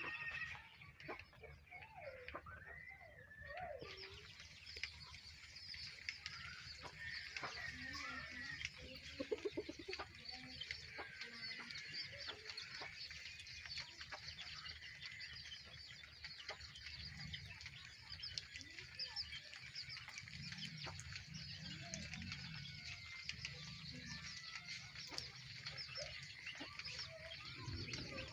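Chickens clucking faintly, over a dense run of small high chirps that begins about four seconds in.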